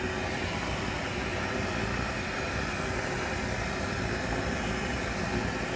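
Thin potato strips deep-frying in a large wok of hot oil, the oil sizzling and bubbling steadily.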